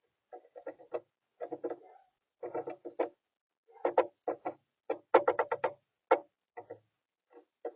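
Rodents feeding at a bird feeder, making bursts of rapid clicks and taps that are loudest a little past halfway through.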